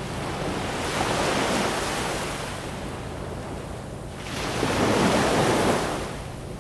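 Ocean waves washing in, two swells of surf noise a few seconds apart, over a low steady hum.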